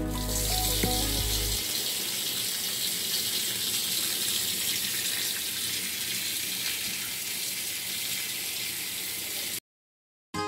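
Tap water running from a hose into the plastic wash tub of a Sharp twin-tub washing machine, filling it over a load of laundry: a steady rushing hiss that stops abruptly about a second before the end.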